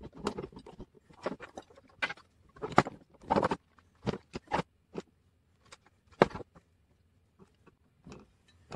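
Irregular clicks, taps and knocks of small model truck parts being handled and fitted by hand, in quick scattered clusters with short pauses.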